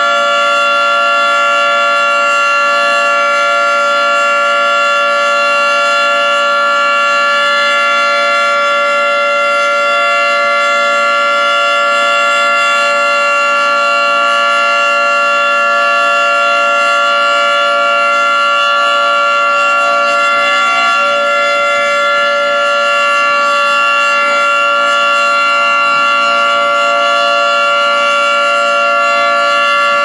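Federal Signal 2T22A two-tone outdoor warning siren sounding its steady Full Alert signal for a monthly test: a loud, constant chord that holds its pitch without rising or falling.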